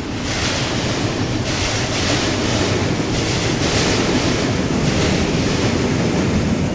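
Passenger train crossing a steel truss railway bridge: a steady rush of wheel and rail noise that swells and eases in a rough repeating rhythm.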